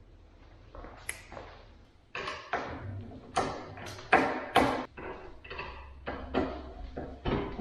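A run of sharp knocks, taps and clicks, about a dozen, starting about two seconds in, some with a short ring: IKEA kitchen cabinet doors and drawers being handled, fitted and shut.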